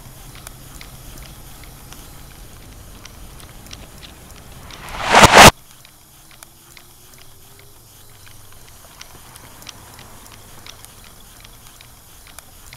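Faint ambience with scattered light ticks, broken about five seconds in by a loud rush of noise that swells over about a second and then cuts off abruptly.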